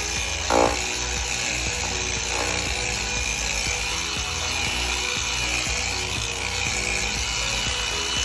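A handheld power tool running steadily on a boat's gel coat, with background music over it. A brief, louder pitched sound comes about half a second in.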